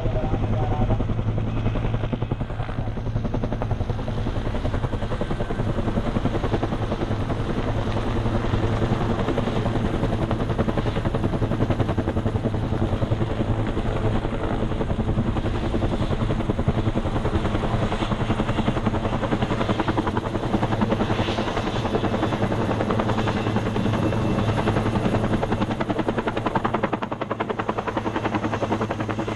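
Firefighting helicopter flying low overhead, its rotor chop and engine drone steady and loud.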